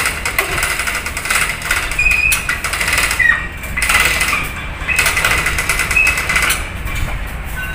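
Rapid metallic rattling and clicking with a few brief high squeaks, over a steady low hum.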